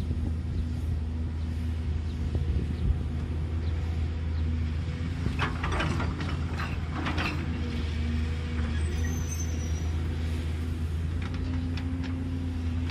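JCB crawler excavator's diesel engine running steadily under hydraulic load, its tone shifting as the arm and boom move. Around the middle, a burst of clattering as a bucketful of soil and stones is dumped into the tipper truck's steel bed.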